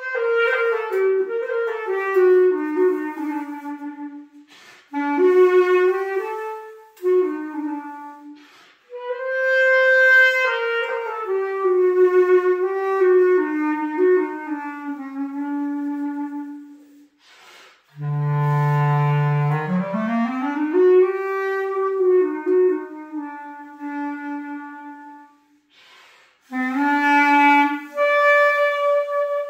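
Unaccompanied clarinet playing a melody in phrases with short breath pauses, full of falling runs. About eighteen seconds in it sinks to a held low note and slides back up, and near the end it settles on a long held note.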